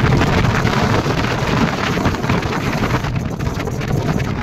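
Wind buffeting the microphone: a loud, steady rushing noise with crackling.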